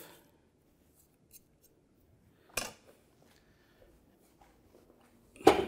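Light kitchen knocks as a small saucepan is carried to the stove and set down on the cooktop: one short knock partway through, then a louder clunk near the end.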